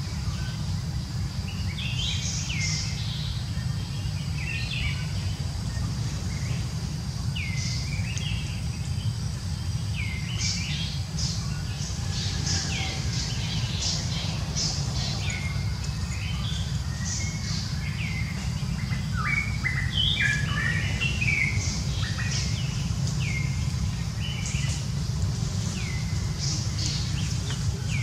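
Birds chirping: many short, high chirps scattered throughout, over a steady low rumble.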